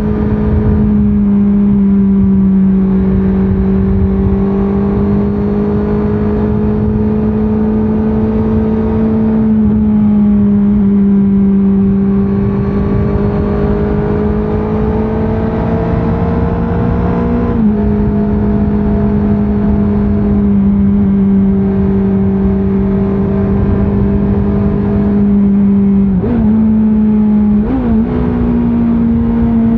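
Honda CBR650R inline-four engine under way at a fairly steady pitch, rising and easing off slowly with the throttle, over low wind and road rumble. About two thirds through the pitch steps up, and near the end it dips and jumps twice in quick succession.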